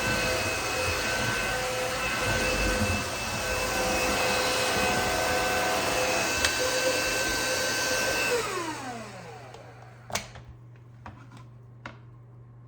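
Aspiron CA-022 cordless wet-dry vacuum running with a steady whine and rush of air while picking up wet coffee grounds and pickle juice. About two-thirds through it is switched off and its motor whine falls away as it spins down, followed by a few light clicks.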